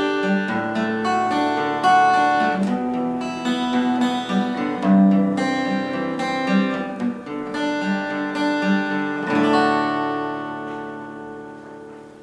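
Acoustic guitar music, plucked notes ending on a last strummed chord about nine seconds in that fades away.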